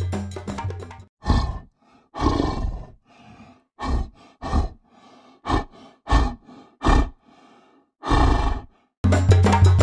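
Tiger giving a series of short roars, about eight calls spaced through several seconds. Percussive background music stops about a second in and comes back near the end.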